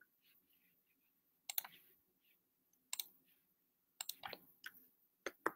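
Faint, scattered clicks from operating a computer, coming singly and in short clusters every second or so.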